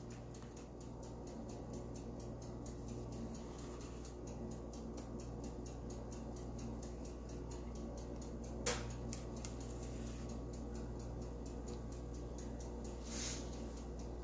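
Faint steady hum, broken by one sharp tap about nine seconds in and a short soft scrape near the end, as a silicone spatula scrapes cake batter from a glass mixing bowl into a metal cake pan.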